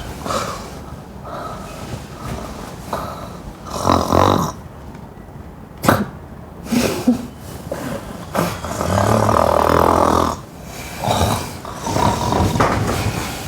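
A person snoring loudly, a run of snores of uneven length, the longest about two seconds long about two-thirds of the way through.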